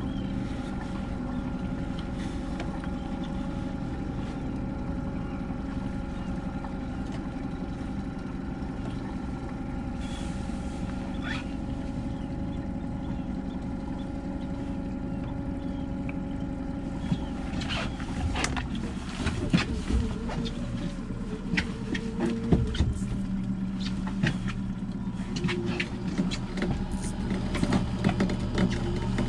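Outboard motor running steadily at trolling speed. About two-thirds of the way in the engine note changes, and irregular clicks and knocks from the fishing rod, reel and boat gear come in as the rod is taken up.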